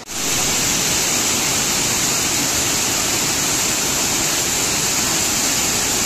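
Waterfall heard close up: a loud, steady rush of falling water with a strong high hiss, cutting in suddenly at the start.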